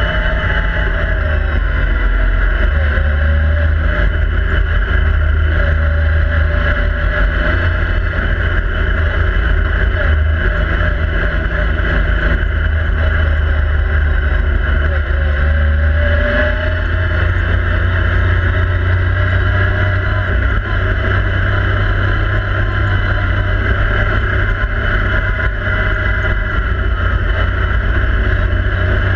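Yamaha YXZ1000R SS side-by-side's three-cylinder engine running steadily under way, heard from inside the cab, its pitch dipping and rising a little a few times as the throttle eases and picks up.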